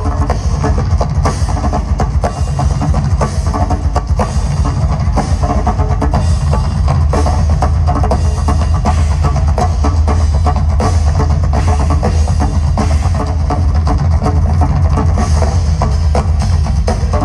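Live amplified band playing a drum-heavy piece: a drum kit and several standing drums beat out a steady, driving rhythm with a heavy low end.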